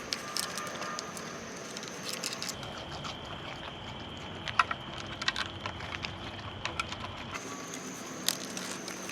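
Scattered light clicks, crinkles and rustles of raccoons handling and pulling at treat-stuffed dog toys, over a steady thin high-pitched tone in the background.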